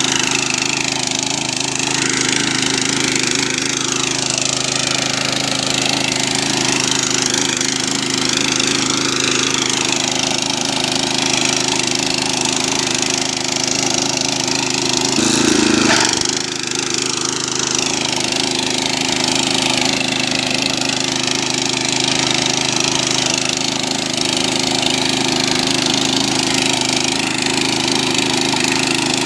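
Tiger GT800 mini power tiller's 208 cc single-cylinder four-stroke OHV engine running steadily under load as the tiller plows a furrow through soil. About halfway through it briefly gets louder, then dips for a moment.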